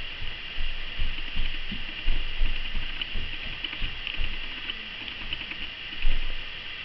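A child's feet stamping and pattering on a rug-covered floor while dancing, in uneven thumps, the loudest about six seconds in.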